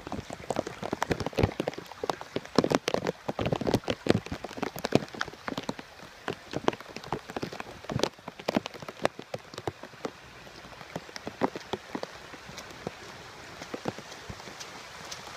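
Heavy rain falling, with many sharp close raindrop taps over a steady hiss. The taps are dense at first and thin out after about eight or nine seconds.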